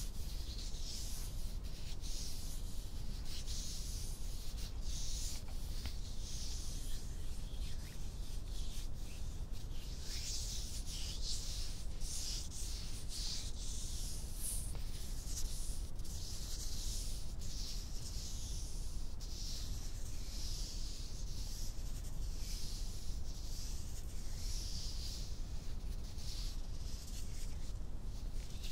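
Hands rubbing skin on skin close to the microphone: a continuous run of soft, hissing strokes, roughly one or two a second, with no pause.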